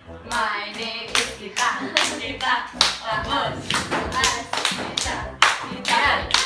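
Girls playing a hand-clapping game: hands slapping together in a steady rhythm about twice a second, with young voices chanting along.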